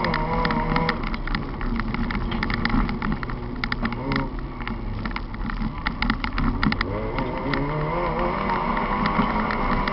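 Racing Volkswagen Polo's engine heard from inside the cabin, running hard on a dirt track. Its pitch drops about a second in and climbs again near the end, with frequent sharp ticks of gravel and dirt striking the car.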